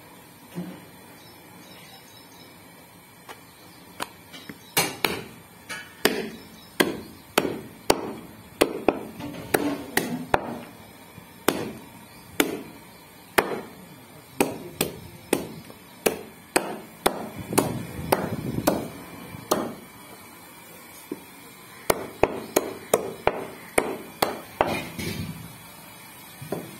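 Cleaver chopping goat meat on a round wooden chopping block: a series of sharp knocks, irregular and a second or less apart, starting a few seconds in. They pause briefly past the middle, then come in a quicker run.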